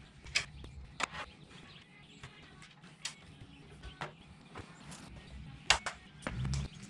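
Scattered light clicks and taps from a licence plate and its fittings being handled against a car's boot lid, with a soft low thump near the end.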